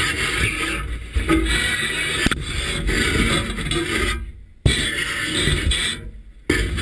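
Muffled underwater rumble and scraping picked up by a GoPro in its waterproof housing on a spanner crab dillie on the seabed while a tiger shark noses at it, with a single knock about two seconds in. The sound falls away and cuts back in abruptly twice in the second half.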